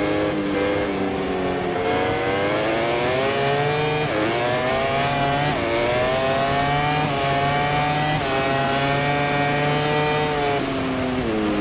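A MotoGP racing motorcycle's four-cylinder engine at full throttle. It accelerates hard, with the note climbing and cutting back sharply at each of about four quick upshifts. It then holds high before the revs fall near the end as the bike slows.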